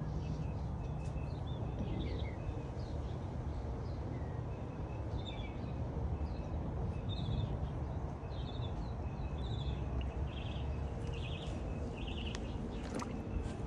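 Birds chirping in short, repeated calls, sparse at first and more regular in the second half, over a steady low outdoor rumble.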